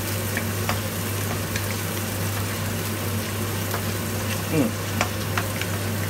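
Seafood, garlic and bird's eye chilies sizzling steadily in hot oil in a nonstick wok, with a wooden spatula scraping and clicking against the pan as they are stirred. A steady low hum runs underneath.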